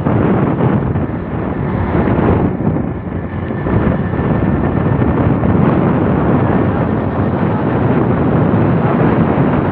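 Wind buffeting the phone's microphone: a loud, steady rumble.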